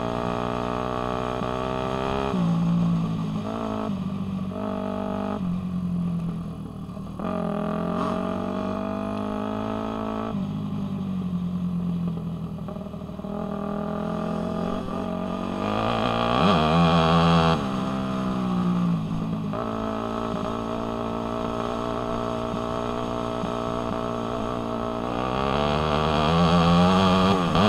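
Dirt bike engine heard on board while riding, its pitch rising and falling with throttle and gear changes. It revs up harder about two-thirds of the way through and again near the end.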